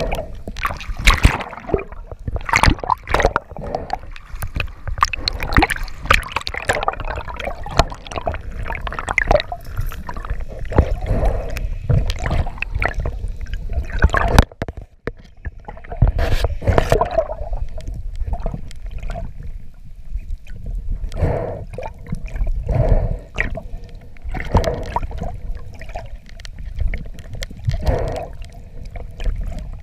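Underwater sound picked up by a spearfisher's camera: irregular gurgling and rushing of water, with many short knocks and rubs from his gloved hands and gear as he works a line and its metal clip.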